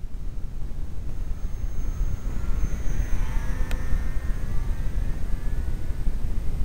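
Steady wind rumble on the microphone, with the faint whine of a radio-controlled electric Cessna 182 model's motor and propeller swelling and fading about two to four seconds in. A single sharp click near the middle.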